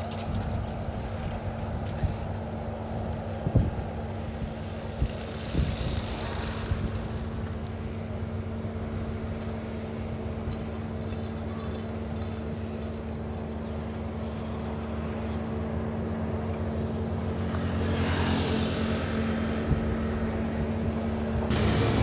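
An engine running steadily with a constant hum, as vehicles pass by on the road, with one swell about a quarter of the way in and a louder one near the end. A few sharp knocks come in the first several seconds.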